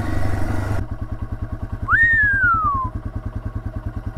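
Yamaha TW200's single-cylinder four-stroke engine: wind rush while riding, then under a second in the wind drops away and the engine settles to a steady idle of even pulses, about twelve a second. A whistle-like note, about a second long, rises and then slowly falls around two seconds in.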